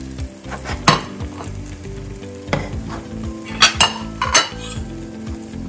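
Ceramic dinner plate being handled and set down on a granite countertop: a few sharp clinks and knocks, the loudest two close together in the second half.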